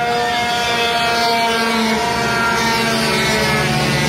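Several racing motorcycle engines running at once, their overlapping buzzing tones slowly rising and falling in pitch as the bikes go round the track.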